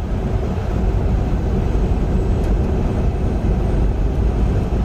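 Steady engine and road noise inside a semi-truck's cab, cruising at highway speed.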